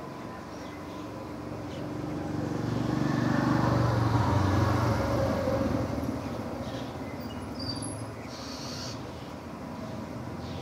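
A road vehicle passing, its engine and tyre noise swelling to a peak about four seconds in and then fading away.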